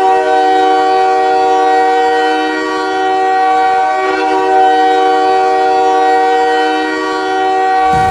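Montréal Canadiens arena goal horn blowing one long, loud blast of several pitches sounding together like a chord. It holds steady for about eight seconds.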